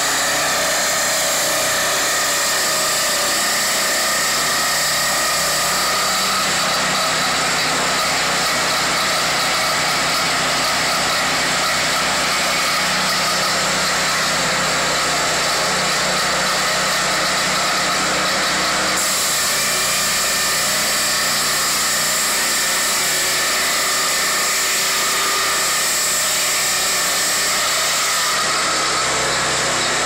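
Peterson swingblade portable sawmill running steadily: its engine drives the circular blade as the carriage saws along a log, cutting a timber beam. The high sawing noise changes about two-thirds of the way through.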